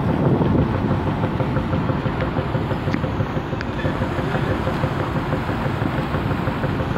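Steady low rumble of the rail ferry Uhuru's engines, with its propellers churning the water as it manoeuvres alongside the pier, and wind on the microphone. A faint steady hum runs through it.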